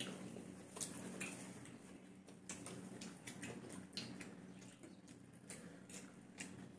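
Forks clicking and scraping on ceramic plates as noodles are twirled and eaten, in irregular small clicks about one to three a second, over a low steady hum.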